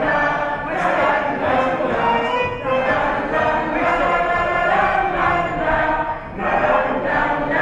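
A large mixed group of amateur voices, men, women and children, singing together as a choir in phrases with brief breaks between them.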